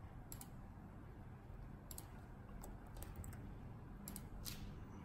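Scattered clicks from a computer keyboard and mouse, about six spread irregularly over a few seconds, over a low steady hum.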